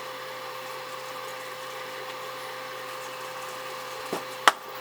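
A steady mechanical hum with a faint, thin steady tone, like a fan or appliance running. There is a sharp click near the end.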